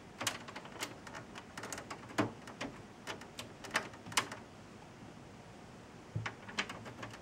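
Scattered sharp clicks and light knocks of plastic and metal parts being handled and pushed into place on a Dell OptiPlex minitower computer case, busiest in the first few seconds, a quiet pause, then a few more clicks near the end.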